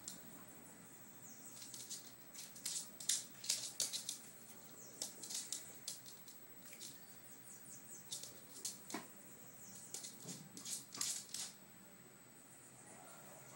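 A chihuahua's claws clicking and pattering on a hard floor in quick, irregular light taps, with a couple of deeper knocks about nine and eleven seconds in.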